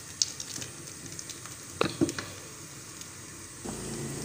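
Thick meat-and-taro curry sliding out of a karahi into a pot of cooked lentils and wheat, with soft squelches and a few light clicks. Near the end a low steady hum comes in.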